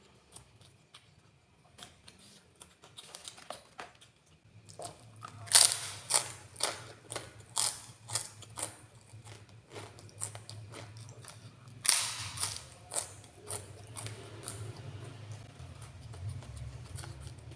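Close-miked eating: a run of crunching bites and chewing clicks, the two loudest crunches about six and twelve seconds in. A low steady hum runs underneath from about five seconds in.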